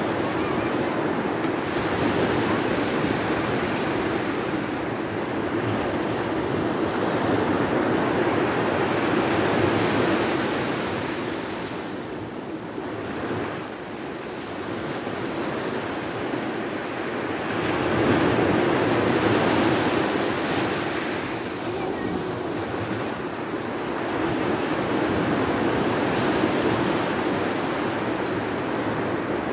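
Small sea waves breaking and washing up a sandy beach in a steady rush of surf that swells and eases every several seconds.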